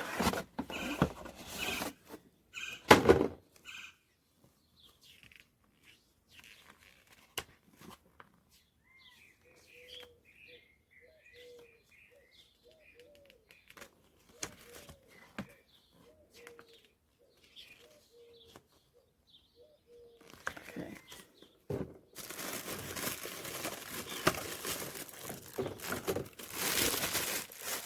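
Packaging being handled, with rustling and a sharp knock about three seconds in. Then birds chirp faintly for several seconds, and near the end paper or plastic wrapping rustles and crinkles steadily as it is unwrapped.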